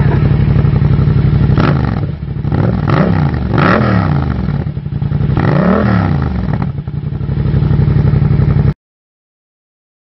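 Yamaha MT-07's parallel-twin engine idling through a Black Widow aftermarket slip-on exhaust, blipped three times so that the note rises and falls in pitch, then settling back to idle. The sound cuts off abruptly near the end.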